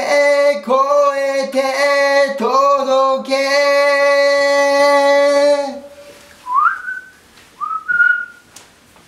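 A man's voice singing unaccompanied, ending on a long held note that stops about six seconds in. After it come a few short, rising whistle-like chirps.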